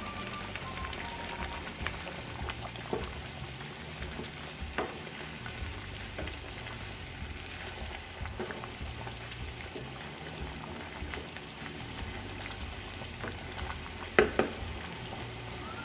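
Yogurt-based green chicken curry bubbling and sizzling in an open pan on full heat, cooking off the water released by the chicken and yogurt. A wooden spatula stirs and knocks against the pan a few times, loudest near the end.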